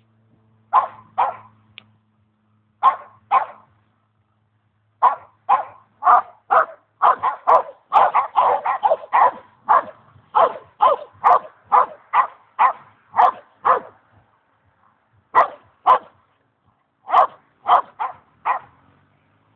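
Boxer dogs barking at one another: a couple of pairs of sharp barks at first, then a fast, unbroken run of barks in the middle, easing into spaced pairs and triples near the end.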